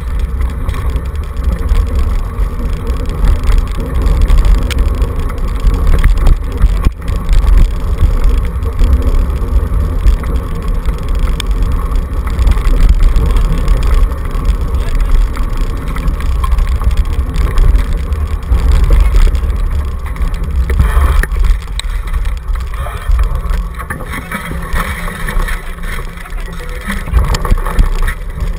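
Low rumble of a two-dog scooter rolling fast over a rough dirt track, heard through a camera mounted on its handlebar, with wind buffeting the microphone. The hiss grows brighter in the last few seconds.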